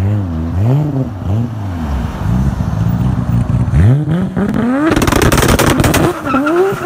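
Mk4 Toyota Supra's straight-six engine revving up and down several times on launch control, then launching with a long rising rev. About five seconds in a burst of rapid crackling comes at the gear change, and the revs climb again in the next gear.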